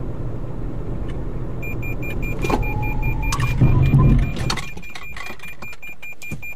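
Cabin noise of a Toyota Corolla Sport driving at speed. From about two seconds in, a rapid high-pitched warning beep keeps repeating: the pre-collision system alerting to a pedestrian ahead. A loud low rumble comes about four seconds in as the car brakes, and the road noise then falls away as it slows.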